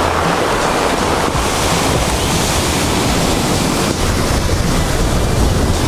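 Ocean surf breaking and whitewater washing up over a beach of rounded stones, a steady rush of water, with wind buffeting the microphone.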